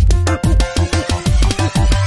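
Background music: an electronic track with a steady beat and deep bass notes that slide down in pitch.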